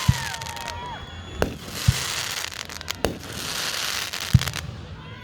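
Fireworks going off: three deep booms and a couple of sharp cracks of bursting shells, with crackling hiss between them. A whistling tone fades out about a second in.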